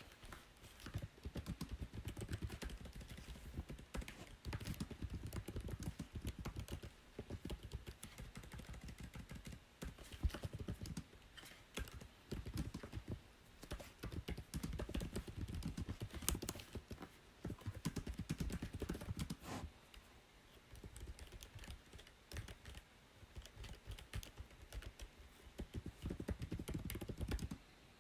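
Typing on a computer keyboard: rapid runs of key clicks with a soft thud under each, in bursts of a few seconds broken by brief pauses.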